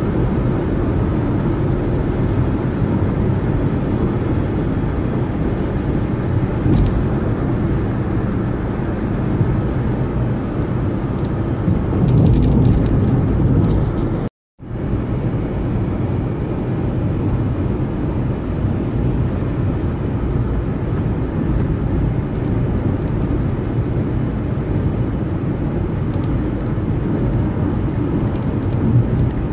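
Steady road noise of a car travelling at freeway speed: tyre and wind rush, heaviest in the low end. It swells briefly and then cuts out for a split second about halfway through.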